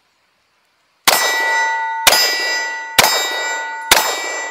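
Four 9mm shots from a Sig P320 X-Five pistol firing 124-grain rounds, evenly spaced about a second apart. Each shot is followed by a metallic ringing that slowly dies away.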